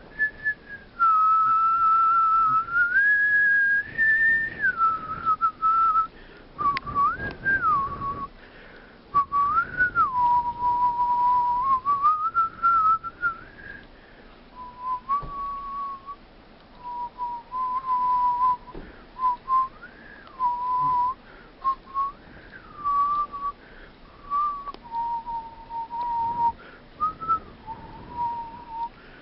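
Whistling: one clear tone that holds notes and slides up and down between them in short phrases, falling to lower notes in the second half.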